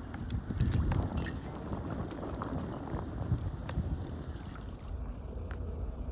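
Cooking oil poured in a steady stream into a frying pan over a wood fire, with scattered crackles from the burning wood and wind rumbling on the microphone. The sound changes abruptly about five seconds in.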